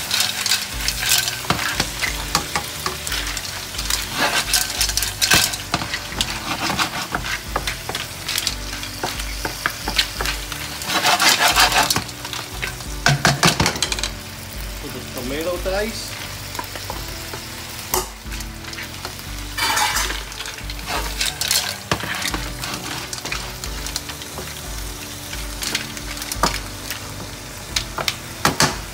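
Mussels and garlic sizzling in butter in a hot wok, their shells clattering against the metal as the wok is tossed and the mussels are stirred with a wooden spatula. The sizzle swells loudly twice, around eleven and twenty seconds in.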